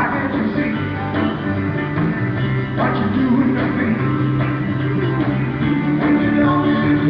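Rock and roll band playing live: electric guitar and bass over drums, in a continuous passage of music.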